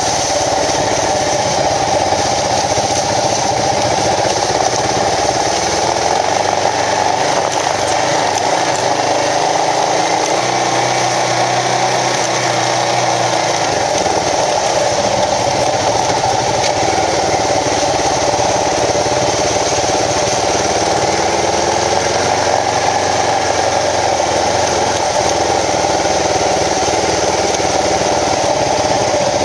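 Kawasaki KLR650 single-cylinder four-stroke engine running steadily under the rider at low trail speed, with only slight rises and falls in pitch.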